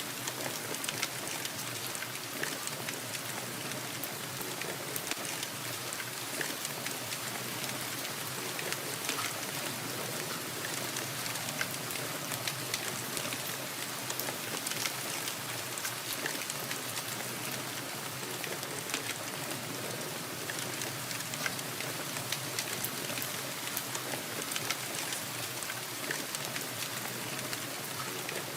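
Steady rain, a continuous hiss dotted with many single drops striking a surface.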